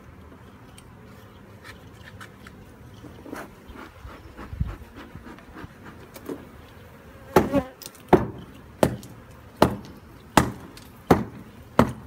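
Hammer blows on a steel chisel against a limestone wall block: seven sharp ringing strikes, evenly spaced about two-thirds of a second apart, in the second half. Honey bees from an exposed wild hive hum steadily throughout.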